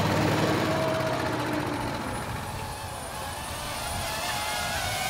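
270 cc go-kart engine running as the kart passes, its note fading away over the first second or two. A higher, wavering engine note rises in again near the end.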